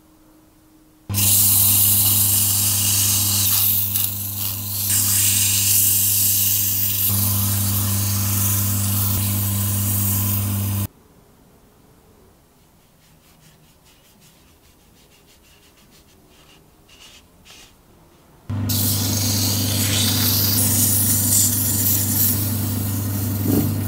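Small lathe running with a steady motor hum while sandpaper rubs against a spinning wooden tool handle, a dry hissing scrape. It comes in two long stretches, about ten and six seconds, with a quiet pause between that holds only a few faint clicks.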